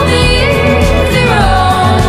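Background music: a song with a steady low beat and melody lines that slide between notes, with no words sung here.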